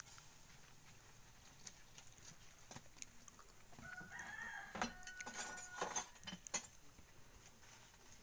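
A rooster crows once, a long call starting about four seconds in. Sharp clatter and knocks of dishes being handled in a plastic basin overlap it, the loudest knock coming just after the crow.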